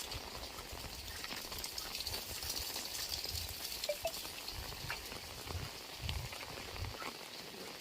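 Heavy rain falling: a steady hiss with scattered patter of drops, over irregular low thuds.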